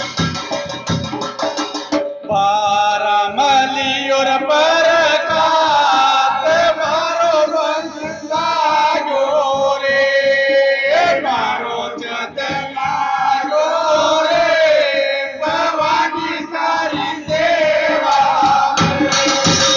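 Devotional jas song in praise of the Mother Goddess: a voice singing over instrumental backing with drums. The singing comes in about two seconds in, after a short instrumental passage.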